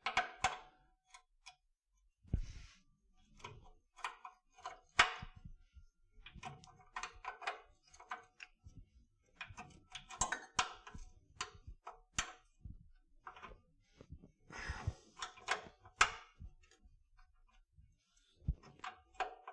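Irregular metallic clinks and knocks of a 12 mm box wrench being fitted to and worked on a sway bar bracket bolt, some strikes ringing briefly.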